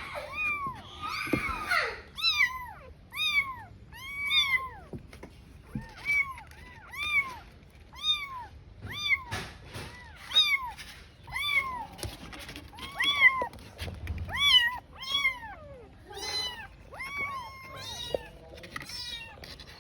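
Young kitten meowing over and over: short, high-pitched cries, each rising then falling in pitch, about one to two a second without a break. They are the persistent distress calls of a kitten left alone.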